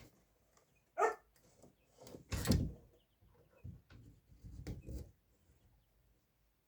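A few short, loud animal calls, the loudest about two and a half seconds in, with smaller sounds of the same kind around four to five seconds.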